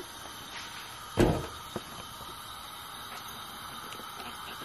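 Steady hiss of a gas hob burner heating oil in a stainless steel pot, with a single thump a little over a second in.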